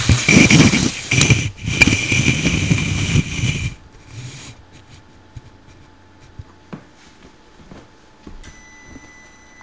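Axial AX10 Scorpion RC rock crawler's electric motor and gear drivetrain whining under throttle in two bursts, broken briefly about a second and a half in, with the tyres and chassis working over wooden blocks. The crawler stops almost four seconds in, leaving a few faint clicks, and a faint steady high whine starts near the end.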